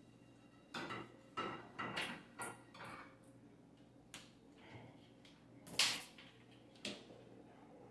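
Light knocks and clatters of a small frying pan and kitchen utensils being handled and set down at a gas stove, as the pan is greased with oil. There are about a dozen short knocks, and the loudest comes about six seconds in.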